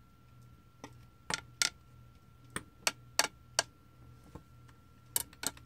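A series of sharp, irregular clicks, some in quick pairs and one run of four evenly spaced, starting about a second in, over a faint steady high-pitched hum.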